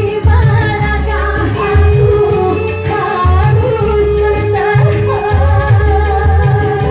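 A woman singing through a microphone over live electronic keyboard accompaniment, with a repeating bass line and a steady beat.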